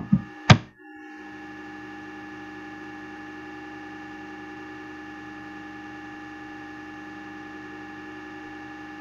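A few sharp keyboard clicks in the first half second, the last one the loudest, then a steady electrical hum made of several held tones.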